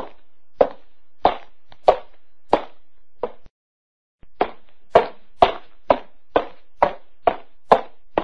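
Footsteps: a steady walking pace of about one and a half steps a second, then after a brief silent break a quicker run of about two steps a second.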